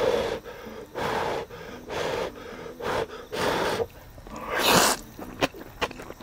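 A person breathing hard through the mouth, a run of sharp breaths about a second apart and one longer, louder breath near the end, reacting to the burn of very spicy kimchi. Short clicks follow in the last second.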